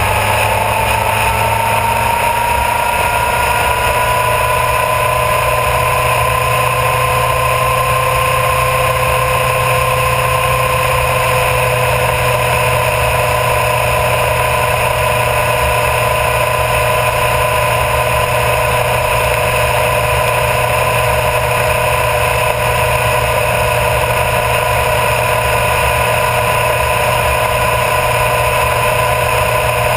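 Honda CBR1000RR Fireblade's inline-four engine running at a steady cruise on the move. Its pitch rises a little over the first several seconds and then holds, over a steady rush of wind and road noise.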